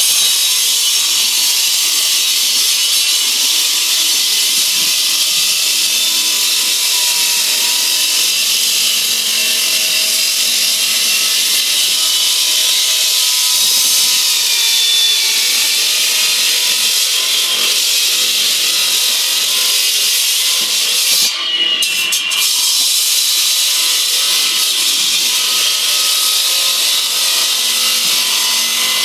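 Three-phase electric Dr Bender diamond hand saw cutting reinforced concrete under load: a steady, high-pitched whine with grinding. The cutting sound dips for about a second some 21 seconds in, then carries on.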